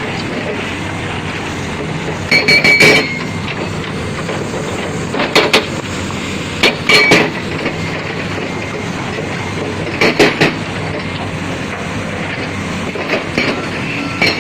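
Heavy construction machinery running steadily, with five short bursts of loud metallic clanking, some with a brief squeal, spaced a few seconds apart.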